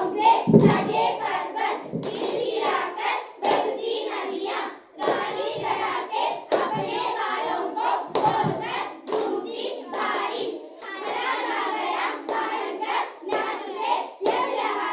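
A group of children singing a Hindi song together while clapping their hands to a steady beat.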